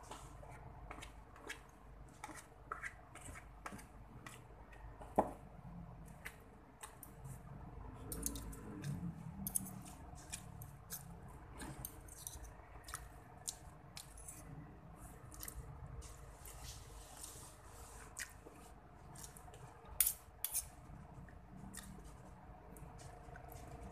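A spoon and fork clicking and scraping in cardboard food boxes while mixing sauced spaghetti and scooping rice, with two sharper clicks, one about five seconds in and one late on.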